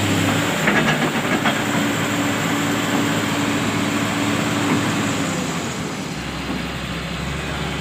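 Heavy diesel machinery working. A steady engine hum gives way about half a second in to a noisy rumble, with a few metallic knocks around a second in, and a low steady hum returns near the end.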